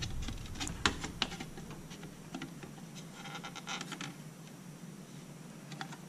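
Plastic memory-module tray holding DDR4 registered DIMMs being opened and handled: a few sharp plastic clicks in the first second or so, a soft rustle of handling about three to four seconds in, and one more click near the end.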